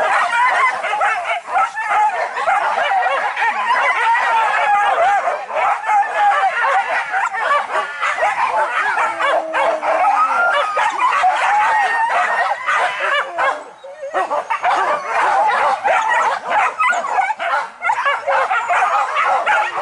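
A pack of boar-hunting dogs barking and yelping without pause, many voices overlapping, with a short lull about fourteen seconds in.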